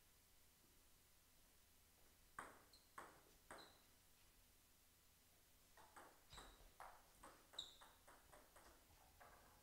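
Table-tennis ball bounced three times, about half a second apart, as the server gets ready. Then a rally: the ball clicks off the paddles and the table roughly three times a second for about three seconds, stopping shortly before the end.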